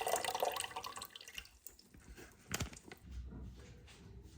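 Milk being poured into a pan: a liquid splash that tails off about a second and a half in, followed by a couple of light knocks.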